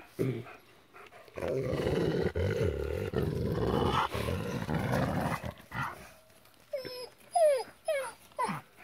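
Gray wolves squabbling: a long, rough growl for about four seconds, then several short falling whines near the end, the sounds of a dominance fight between pack members.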